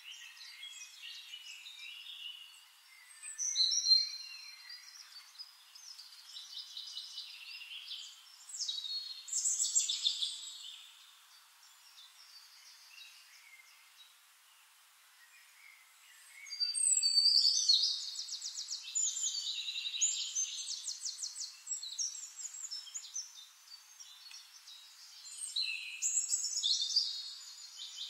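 Songbirds singing: phrases of fast trills and chirps a few seconds apart, with a quieter gap about halfway through.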